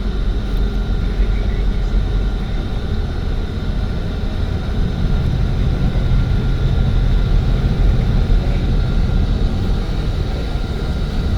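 Steady road and engine noise of a moving vehicle, heard from inside, deep and unbroken.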